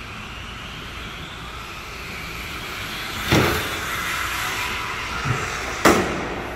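RC car motor whining as the car drives, slowly getting louder, with two sharp knocks about three and six seconds in.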